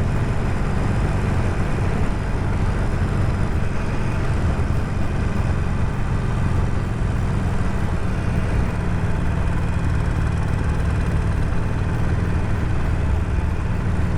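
Harley-Davidson Sportster Forty-Eight's air-cooled V-twin engine running steadily at cruising speed, under wind and road noise on a helmet-mounted microphone.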